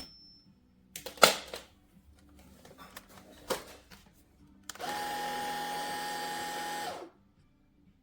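A few clicks and knocks, as of plastic parts being handled, then a cordless vacuum cleaner switched on briefly: it runs with a steady whine and rush of air for about two seconds and cuts off.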